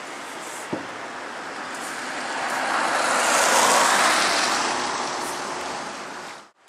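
A vehicle driving past on a wet road: tyre hiss swelling to its loudest about halfway through, then fading, and cut off abruptly near the end.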